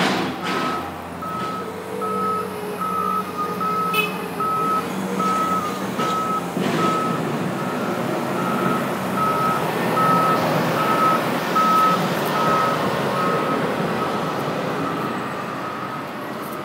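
Backup alarm of a reversing heavy vehicle beeping steadily, about two beeps a second, over the noise of its running engine; the beeping fades out near the end.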